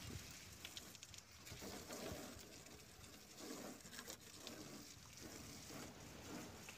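Faint patter and splash of water from a hose spraying over wet cotton seed being rinsed in a mesh tray, washing out the sulfuric acid after delinting, with a few small clicks.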